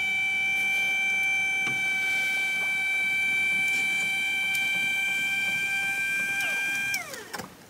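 Electric motor of a power-reclining theater seat whining steadily as the seat reclines and the footrest rises, then dropping in pitch and stopping near the end.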